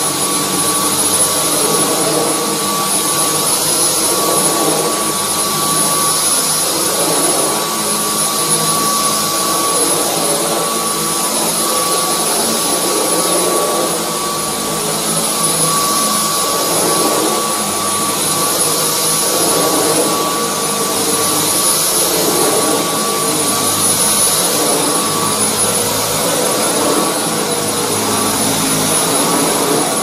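Dyson V10 Absolute cordless stick vacuum running on its middle power setting while its floor head is pushed back and forth over carpet. It makes a steady rush of air with a constant high-pitched whine from the motor.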